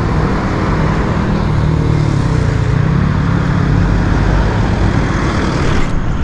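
Steady road traffic noise, with motor vehicle engines running close by.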